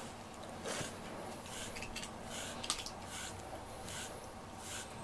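FURminator de-shedding comb drawn through a short-haired cat's fur in a run of short brushing strokes, roughly two a second.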